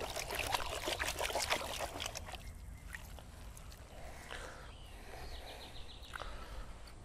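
Water sloshing and splashing as a plastic gold pan is swirled and dipped in a tub of muddy water to wash down sluice-mat concentrate. Busy for the first couple of seconds, then softer, scattered splashes.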